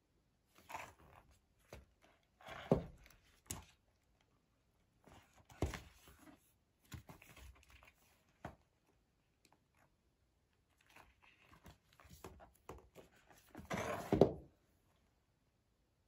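Cardboard board books being handled: stiff pages turned and the books knocked and set down, giving soft rustles and knocks in short spells, the loudest near the end.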